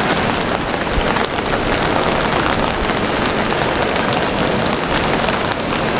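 Steady rain falling and splashing on hard surfaces, a dense even hiss with many small drop ticks scattered through it.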